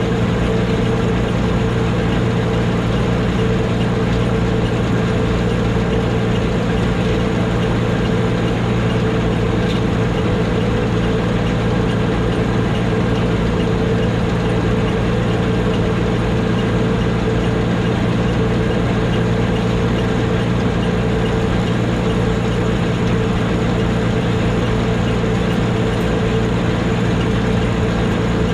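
Engine and machinery of an old Gleaner combine running steadily: a constant drone with a steady low hum.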